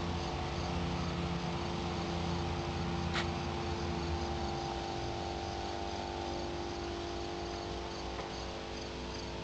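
A machine running steadily: an even hum with a hiss over it, the deepest part easing off about halfway through, and a single short click about three seconds in.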